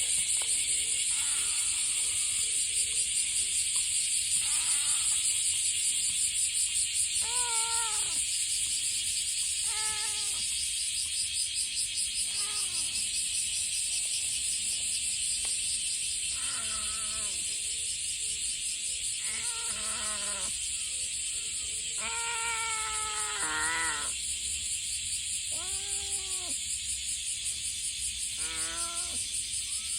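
A cat meowing again and again, about ten separate meows that rise and fall in pitch, with a longer wavering stretch about two-thirds of the way in. Behind it is a steady high insect chorus.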